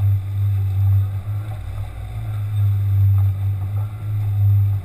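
Outboard motor on a small fishing boat running steadily under way: a low, even drone with water wash and some wind noise over it.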